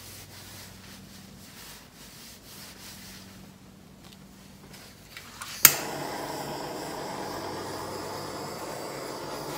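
Handheld butane torch lit with a sharp igniter click a little past halfway, then its flame burning with a steady hiss.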